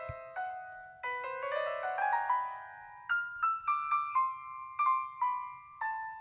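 Background piano music: a light melody of single notes, with a quick run of rising notes about a second in.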